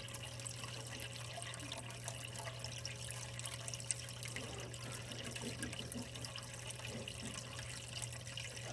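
Water trickling steadily in a turtle tank, over a low steady hum, with one sharp click about four seconds in.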